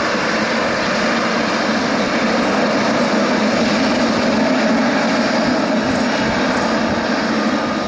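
Boeing 777F freighter's twin GE90 jet engines running at taxi power as the aircraft rolls along the taxiway: a steady, loud rushing hum with a low drone underneath.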